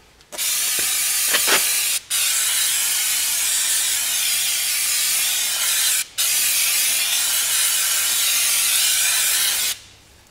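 Aerosol brake cleaner spraying onto a rear drum brake assembly: one long hiss that stops briefly twice, about two and six seconds in.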